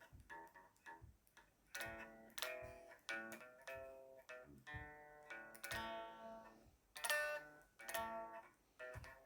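Guitar playing: a run of picked single notes with several louder, ringing chords.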